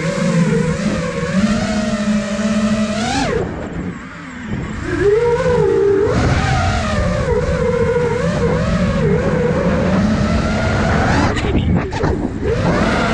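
Brushless motors and 5-inch propellers of an iFlight Nazgul Evoque F5 FPV quadcopter whining, the pitch rising and falling with the throttle. A sharp rise about three seconds in drops away as the throttle is cut, then builds again about a second later. Quick throttle changes come near the end.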